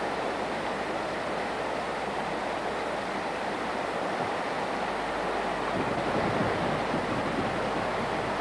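Steady rush of fast river water running over the rocks of rapids, a little louder and fuller in the low end from about five seconds in.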